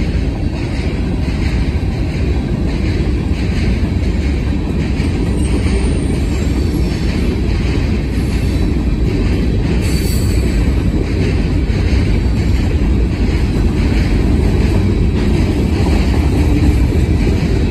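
A long freight train of hopper and trash cars rolling past at speed: a steady, loud rumble of steel wheels on rail with a faint regular clicking over the joints. The wheels run smooth, without the pounding of flat spots.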